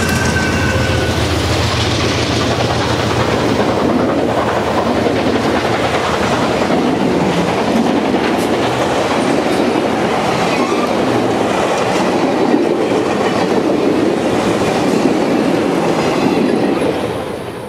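Passenger cars of a train rolling past close by at speed: a steady rumble of steel wheels on rail, dropping away in the last second as the last car goes by.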